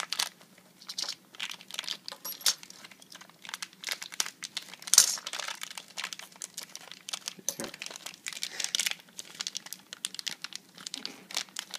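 Small clear plastic parts bags crinkling as they are handled and opened by hand, an irregular run of crackles with a louder burst of crinkling about five seconds in.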